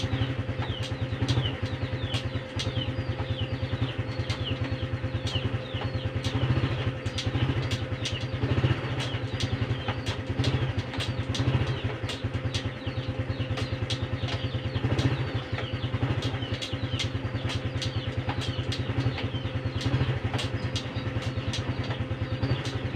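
A Honda Supra X 125 FI's single-cylinder four-stroke engine idling steadily in a fast even pulse, with a few brief swells in loudness.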